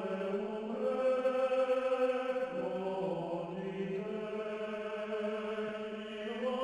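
Voices chanting together in long held notes, the pitch shifting to a new note a few times: choral chant as background music.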